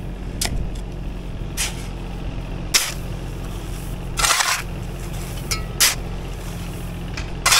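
A heavy vehicle's engine running steadily, with about six short sharp hisses spaced a second or so apart.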